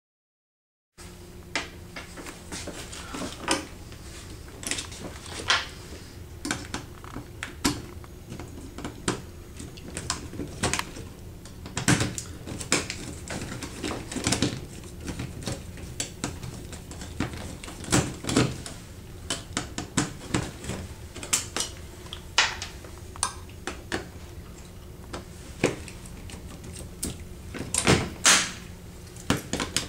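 Irregular clicks, taps and knocks of hands handling a wall-mounted refrigeration temperature controller and its metal bracket and wiring while removing it, over a steady low hum.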